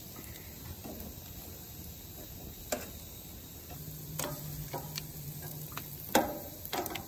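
Stainless steel tongs clicking and scraping against a gas grill's metal grates as strips of venison are picked up and turned, a handful of sharp clacks with the loudest about six seconds in, over faint sizzling of the meat.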